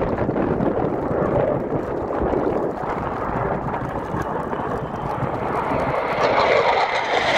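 Twin jet engines of an F/A-18 Hornet fighter in a display flight, a continuous rushing roar. It grows louder and brighter near the end as the jet comes closer.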